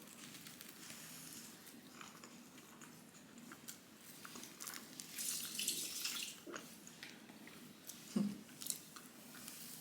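Close-up mouth sounds of biting and chewing a soft Berliner doughnut filled with chocolate cream: small wet clicks and squishes, with a louder stretch of rustly noise about five seconds in.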